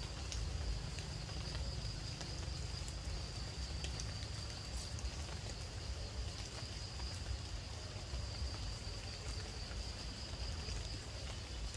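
Steady high-pitched drone of forest insects over a low, even rumble.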